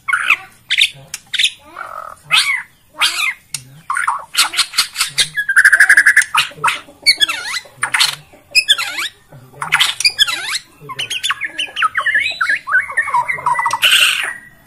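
White-rumped shama (murai batu) singing a fast, varied song of loud whistles, harsh squawks and trills, with one held whistle about six seconds in.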